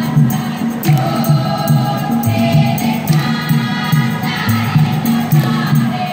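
Live performance of a Malay song: voices singing over band accompaniment with a repeating bass line and a steady percussive beat.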